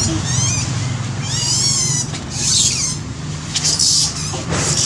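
Baby monkey giving bouts of very high-pitched, wavering squeals, several short calls each under a second, over a steady low hum.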